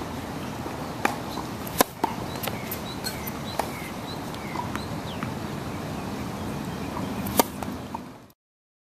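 Tennis serve: a sharp pop of the racket strings striking the ball, then several fainter knocks, with birds chirping over a steady outdoor hum. A second loud hit comes near the end before the sound fades out.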